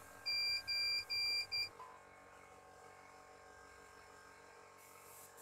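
Four short electronic beeps at one pitch in quick succession, about two a second, then a faint steady hum.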